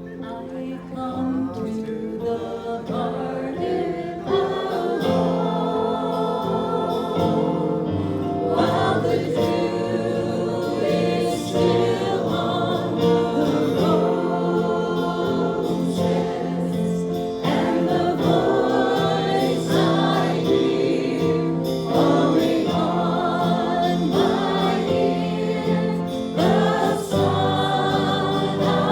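Christian worship song: voices singing together over held instrumental chords, swelling up over the first few seconds.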